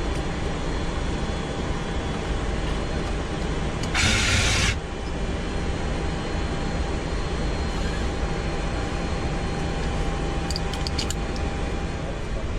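Steady hum and rumble on the flight deck of a taxiing Boeing 747-200, with a short, loud hiss about four seconds in and a few faint clicks near the end.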